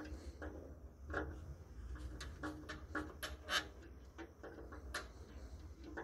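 Insulated screwdriver working a current transformer's small screw terminals: irregular small clicks and scrapes as the screws are turned down on the cable cores, over a low steady hum.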